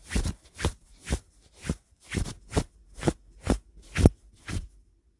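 Footstep sound effect for a walking LEGO minifigure: short, sharp steps at an even pace of about two a second, stopping shortly before the end.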